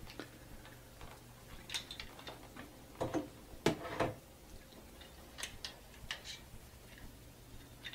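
Light clicks and knocks of a jerky gun's plastic tube and parts being handled, with a few louder knocks about three to four seconds in.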